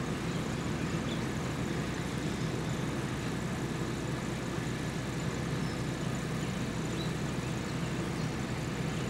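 A steady, low engine rumble, like an engine idling, with no change in pitch or level.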